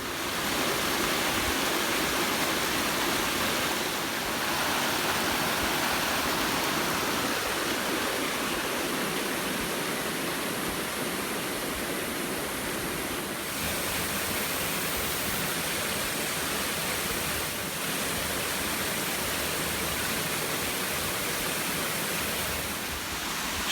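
Steady rush of water from a mountain stream pouring down a series of stepped pools and small cascades, shifting a little in level a few times.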